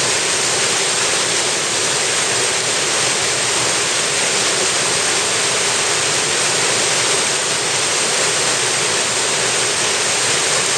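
Mountain stream rushing over rocks through shallow rapids: a loud, steady rush of water.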